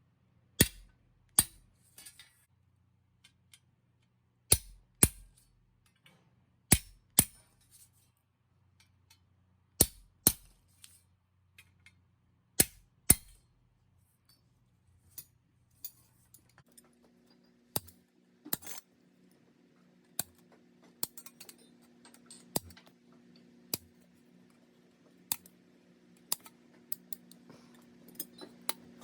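Hand hammer striking metal fittings work, sharp ringing blows in pairs every two to three seconds. Just past halfway a steady low hum begins, with lighter, irregular taps over it.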